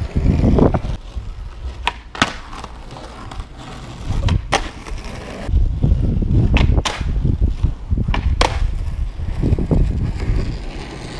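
Skateboard rolling on asphalt, its wheels rumbling louder and quieter as it passes, with several sharp clacks of the board.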